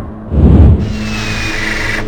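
Background music with a heavy low hit about half a second in, followed by steadier held tones.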